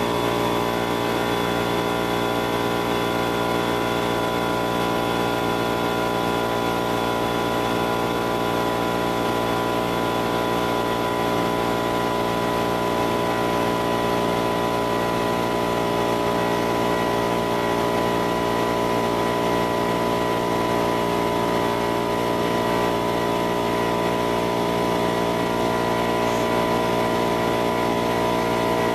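Go-kart engine running at a steady pitch.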